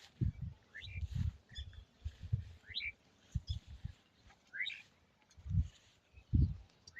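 Birds chirping in short rising notes, a handful of times, over irregular low thumps and rumbles.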